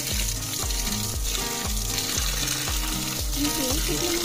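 Water pouring from a pipe and splashing over a basket of small fish as hands stir and rub them clean, a steady hiss of spray. Background music with a regular bass beat runs underneath.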